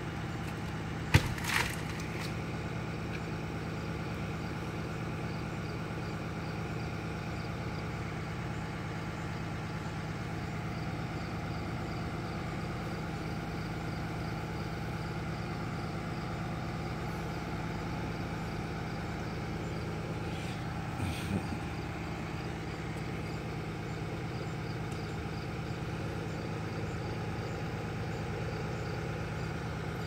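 Bucket truck engine idling steadily, keeping the boom's hydraulics running, with a single sharp knock about a second in.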